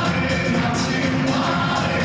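A song with a lead singing voice over the accompaniment, played loud through a hall's sound system.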